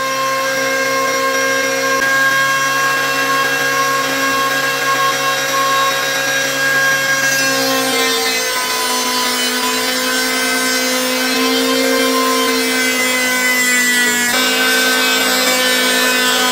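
Electric hand planer, mounted upside down as a small jointer, running at speed with a steady motor whine. About eight seconds in, a wooden board is fed across the cutter head: the whine drops a little in pitch under the load and a hissing cut joins it.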